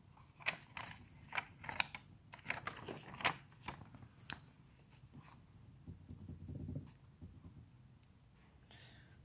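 Faint crackle and rustle of a paper textbook page being turned by hand: a run of short, crisp clicks over the first four seconds, then a softer rustle around six to seven seconds in.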